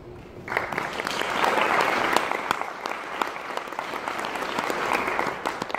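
Audience applauding, starting about half a second in with many quick claps.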